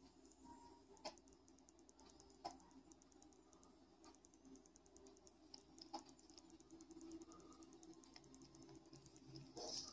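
Near silence with faint, irregular clicks a second or two apart, like keys or buttons being pressed.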